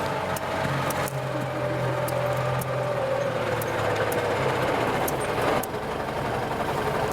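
Kubota M9540 tractor's four-cylinder diesel engine running steadily while ploughing, its pitch easing down slightly over the first few seconds, with sharp clicks now and then.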